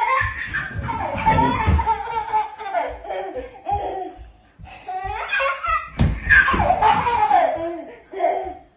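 A toddler laughing in repeated bursts of giggles and belly laughs, with short breaks about four and a half seconds in and near the end.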